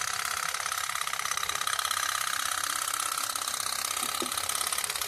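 Candle-heated toy pop-pop steam boat running on water, making its rapid, even popping putt-putt without a break.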